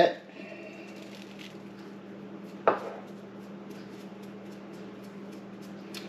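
Quiet kitchen room tone with a steady low electrical hum, broken about three seconds in by a single sharp knock of a small bowl set down on the countertop.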